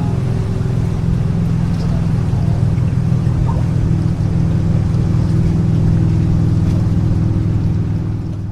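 Motorboat engine running steadily under way, a loud low drone that eases off slightly near the end.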